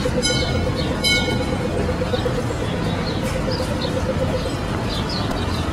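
City street noise: a steady wash of traffic and crowd, with a steady hum that fades out about two thirds of the way through and two short high-pitched sounds about a second apart near the start.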